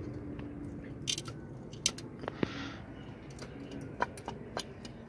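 Scattered light clicks and taps, with a short soft scrape about midway, from a hand handling a rusted, cracked front brake dust shield around a bare wheel hub.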